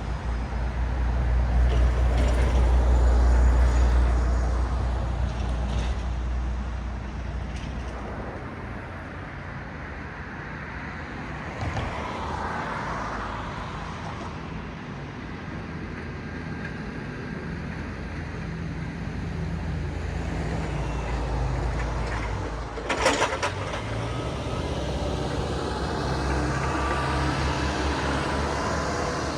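Road traffic passing: engine and tyre rumble of cars and heavier vehicles. It swells loudest a few seconds in, eases, and builds again later, with one short sharp sound about two-thirds of the way through.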